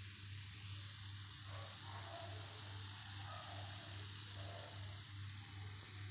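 Faint, steady sizzling of ghee in freshly cooked wheat-flour halwa in its still-hot pan, with a low steady hum underneath.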